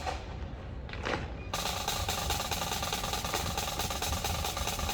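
A single sharp knock about a second in, then a fast, continuous snare drum roll starting about a second and a half in and carrying on.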